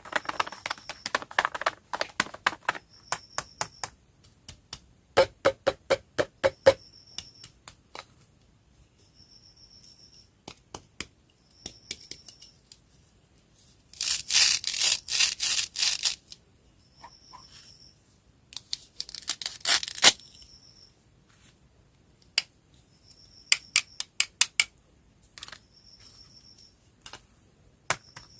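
Hands handling and opening candy and snack packaging: scattered clicks and crinkles, with two longer loud rustling stretches, about 14 and 19 seconds in.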